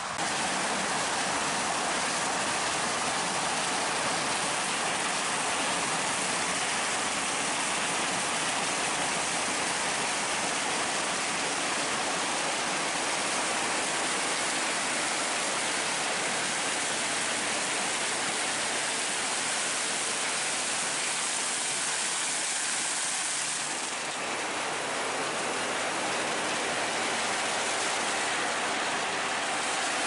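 Claas Lexion 740TT combine harvesting corn: a steady, even rushing noise of the machine and crop, with no clear engine note, dipping briefly a little past the middle.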